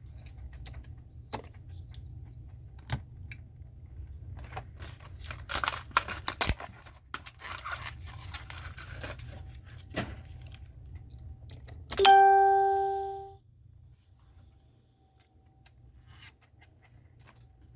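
Crinkling, clicking and tearing of plastic blister packs and cardboard cards being handled and opened, busiest midway. About twelve seconds in, a single loud bell-like ding rings out and fades over about a second, and a low hum underneath stops soon after.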